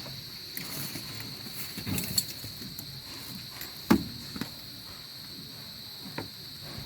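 Steady high-pitched insect drone, with a few short knocks and clicks from hands working on the car's wiring, the loudest about four seconds in.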